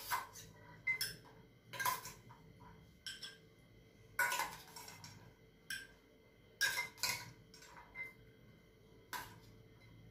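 A spoon clinking against a stainless steel bowl as chopped fruit is stirred: about ten irregular clinks, roughly one a second.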